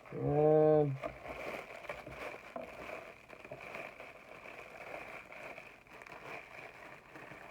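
Soft rustling and crinkling of packaging while rummaging through a subscription box for the next item, with a faint steady high-pitched hum underneath.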